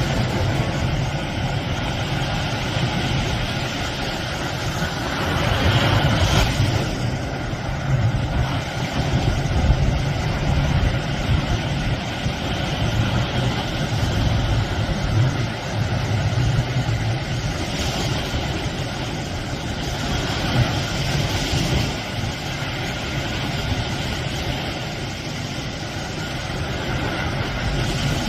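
Sea waves rushing and washing onto the shore in a continuous roar of surf, swelling louder a few times as bigger waves break.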